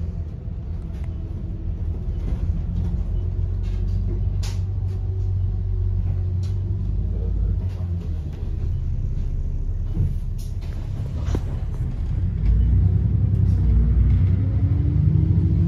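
Double-decker bus heard from the upper deck: the engine running with a low rumble, with scattered short rattles and clicks from the bodywork and fittings. About three-quarters of the way through it gets louder and the engine and drivetrain pitch rises, then eases back, as the bus speeds up.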